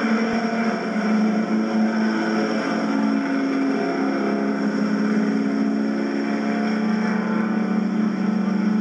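Several small stock-car race engines running together, their steady overlapping tones shifting slightly in pitch as the pack laps the oval.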